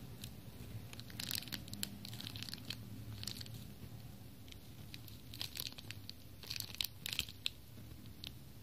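Clear plastic packet crinkling in the fingers as the foam earplugs inside are squeezed through it: scattered clusters of crackles, busiest from about a second in to three and a half seconds and again from about five and a half to seven and a half seconds.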